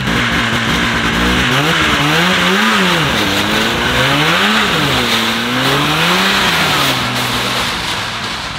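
Snowmobile engine idling, then revving as it pulls away towing a loaded sled: the pitch rises and falls three times, and the sound fades near the end as it drives off.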